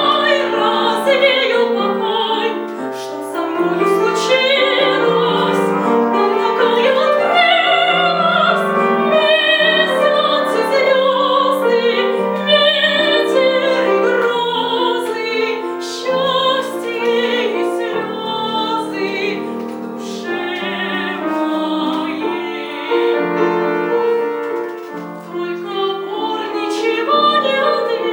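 A female singer in trained classical style singing a song with vibrato, accompanied by piano.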